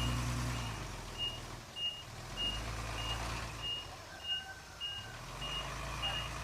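Reversing alarm of a heavy earth-moving vehicle beeping steadily, a little under two beeps a second, over a diesel engine running and rising and falling in load.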